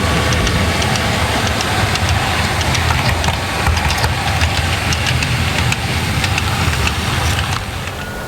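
Model railway train running on the track: a steady engine-like drone, such as a sound-fitted diesel locomotive, with frequent light clicks of wheels over rail joints.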